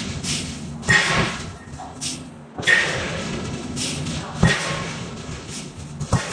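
Heavy forging hammer striking hot steel in a steady rhythm: four loud blows a little under two seconds apart, each with a short metallic ring.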